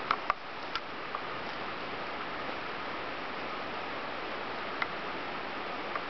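Steady outdoor background hiss with a few short sharp clicks in the first second and one more about five seconds in.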